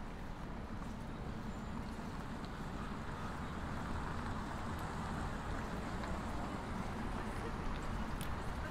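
City street ambience: a steady hum of traffic, growing a little louder in the second half.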